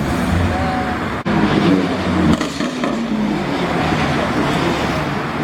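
Car engine running with gentle rises and falls in revs, and a brief dropout in the sound about a second in.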